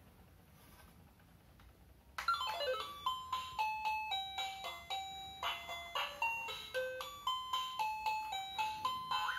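A simple electronic beeping tune from a toy electric drill's sound chip. It starts suddenly about two seconds in with a quick falling run of notes, goes on as a plinky melody of single notes, and starts over with the same falling run near the end.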